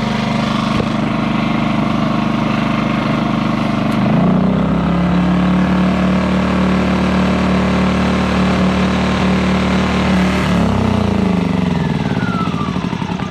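Portable generator's small engine running with its fuel shut off, so the carburetor is being run dry. The engine speed steps up about four seconds in, then from about ten seconds in it slows and winds down as it runs out of fuel, dying near the end.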